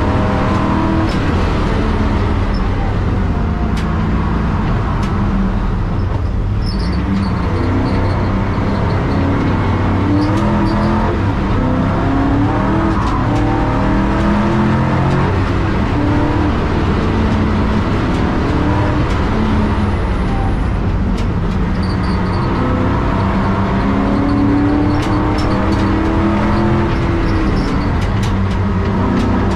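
Race car engine heard from inside the cabin under hard driving, its pitch climbing and dropping back again and again as it goes through the gears. It eases off briefly about six seconds in, then pulls hard again.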